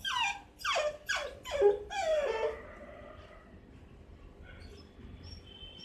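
Six-month-old miniature dachshund puppy whining to be let out at night. A quick run of four or five high cries, each falling in pitch, ends in a longer drawn-out cry about two and a half seconds in.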